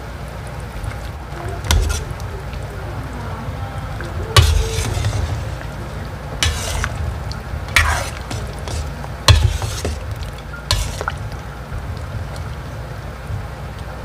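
Metal ladle stirring chicken soup in a large aluminium pot, knocking and scraping against the pot about six times, loudest a little after four seconds and again after nine. A steady low hum runs underneath.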